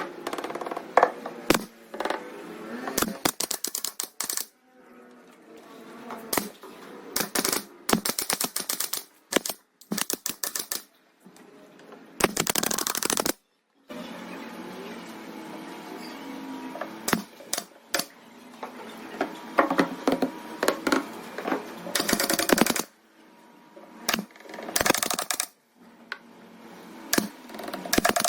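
Clicks and knocks of parts being fitted as a 15-inch subwoofer cabinet is assembled, with a few noisy bursts of about a second each.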